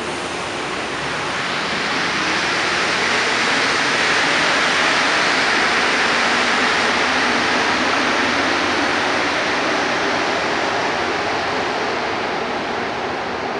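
Rubber-tyred metro train pulling out of the station and into the tunnel: a steady rushing noise that swells a couple of seconds in, then slowly fades toward the end as the train draws away.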